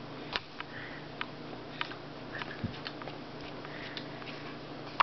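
A toddler chewing finger food, with scattered small clicks and taps as fingers pick at a plastic plate, over a steady low room hum.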